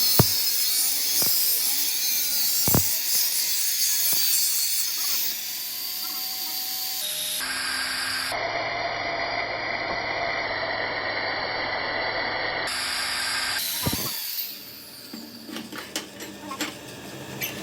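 Metalworking tool noise: a dense, high scraping hiss with a few sharp clicks for about five seconds, then a steadier machine run with a few even tones, and quieter scattered clanks near the end.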